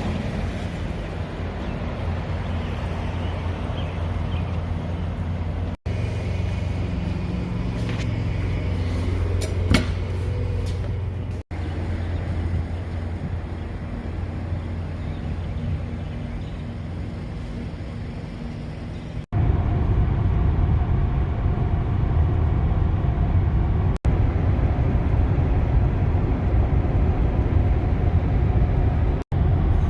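Car on the move: steady low road and tyre rumble heard from inside the cabin. It breaks off abruptly and resumes several times, with a sharp click about ten seconds in, and runs louder through the last third.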